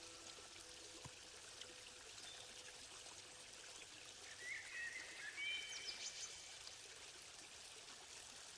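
Faint running-water ambience, like a stream, with a few faint high chirps about four to six seconds in.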